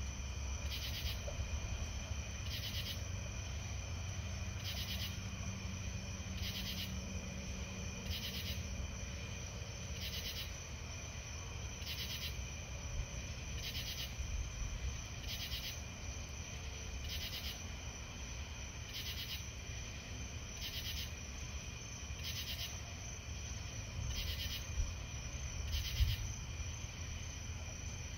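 Night insect chorus: a steady high trill with a louder, raspy call repeating about every two seconds, over a low rumble.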